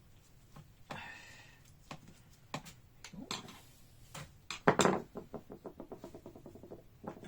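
ThinkPad X1 Extreme Gen 3 bottom cover being pried off: scattered clicks and a short scrape, a loud snap near five seconds in, then a quick run of small clicks, about ten a second, as the cover's clips come free.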